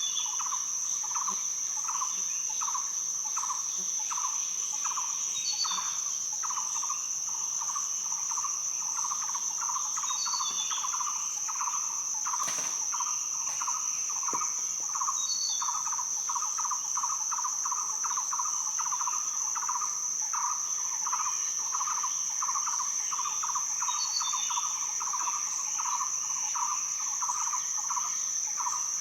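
Rainforest insect and bird ambience. A steady high-pitched cicada-like drone runs under a lower insect chirp that pulses a couple of times a second and quickens in the second half. A short bird call comes about every five seconds.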